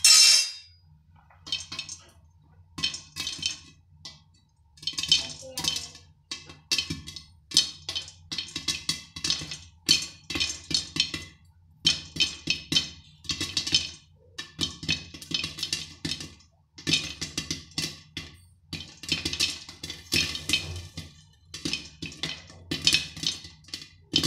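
Popcorn kernels popping in a hot oiled kadhai under a glass lid: rapid, irregular pops and clinks as kernels burst and strike the lid, coming thicker as the popping gets under way, over a steady low hum.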